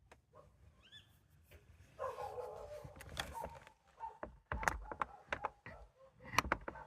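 An unidentified animal calling: a dense, noisy call starting about two seconds in, followed by many short sharp clicks that grow louder near the end.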